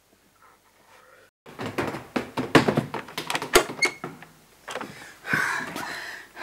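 Panelled door: about a second and a half in, a quick run of loud knocks and rattles at the door and its knob starts suddenly. Near the end the door is pushed open with a noisy scrape.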